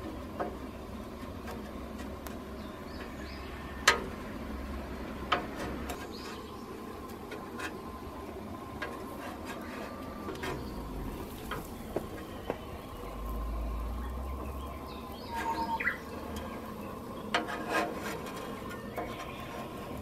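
Handheld gas torch hissing steadily while a flat scraper blade works blistering paint off a steel panel, with scattered scrapes and sharp clicks of the blade on the metal. The loudest click comes about four seconds in.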